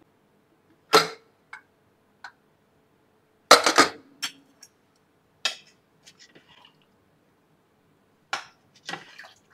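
Scattered sharp metal clanks and clatters of an aluminium pressure cooker and its lid being handled, the loudest clatter about three and a half seconds in. Near the end a ladle knocks against the inside of the pot.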